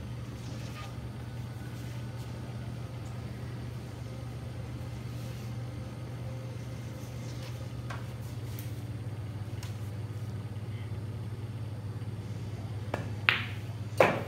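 Steady low hum with a few faint ticks, then near the end two sharp clacks of a cue and billiard balls as a pool shot is played.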